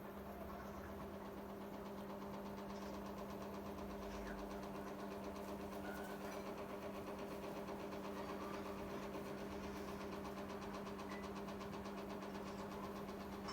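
Rowenta Turbo Silence Extreme pedestal fan running, with a steady motor hum and the rush of its blades.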